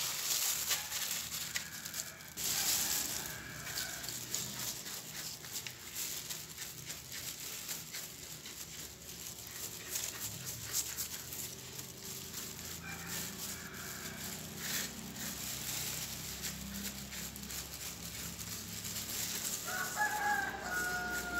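Clay pebbles rattling under a gloved hand at first, then a small trowel scraping and loosening dry potting soil and leaf litter in a plastic pot, a run of small scratchy clicks. A chicken calls now and then in the background, most clearly near the end.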